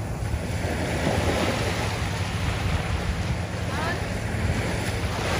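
Small waves washing up and draining back on a sandy beach, a steady surf wash with wind buffeting the microphone as a low rumble.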